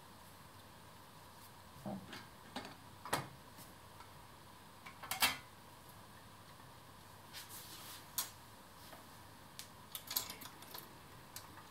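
Scattered small clicks and light knocks of detail parts being set back by hand onto a model steam locomotive, about a dozen taps with the loudest about five seconds in.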